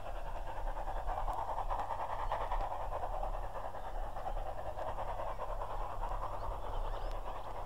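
A British Railways 'Jubilee' class 4-6-0 steam locomotive, No. 45617 Mauritius, working hard up a steep gradient with a passenger train and no banking engine. Its exhaust beats run on in a steady rhythm.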